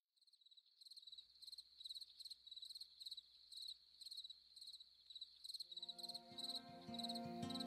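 Crickets chirping in a steady rhythm of a few chirps a second, fading in from silence. Soft music with sustained notes comes in about six seconds in and grows louder.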